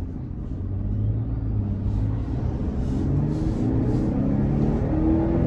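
2022 Toyota Tundra's twin-turbo V6 under full-throttle acceleration, heard from inside the cab. The engine note climbs in pitch and drops back at each upshift of the 10-speed automatic, getting louder as the truck gathers speed.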